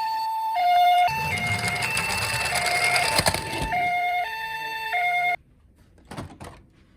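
Toy ambulance minicar's electronic two-tone siren, a Japanese-style hi-lo "pee-po" alternating between two steady pitches. For about three seconds in the middle a loud rattling noise plays over it, as the toy rolls down the slope. The siren cuts off suddenly about five seconds in, leaving only faint clicks.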